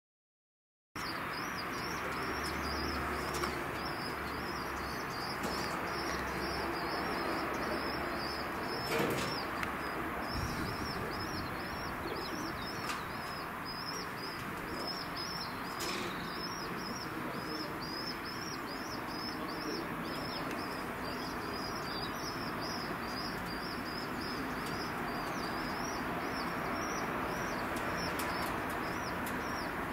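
Birds calling, with a high chirping that repeats about three times a second throughout and a pigeon cooing, over a steady background hiss. There is a brief knock about nine seconds in.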